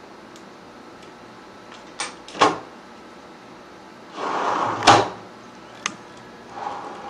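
Parts of a curtain track being handled: a few sharp clicks and knocks, then a short sliding scrape that ends in a loud click, and another click and softer scrape after it.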